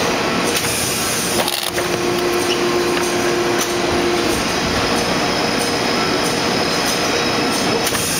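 Automatic die-cutting press for envelope blanks running: a loud, steady mechanical din with faint hum tones, briefly dipping about a second and a half in.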